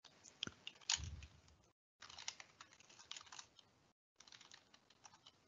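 Faint computer keyboard typing: scattered keystrokes in three short runs, with brief pauses between them.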